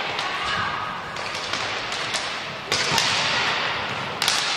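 Inline hockey play on a wooden gym floor: skate wheels rolling and sticks and puck clacking, echoing in the hall. Two sharp hits stand out, about two and a half seconds in and again near the end.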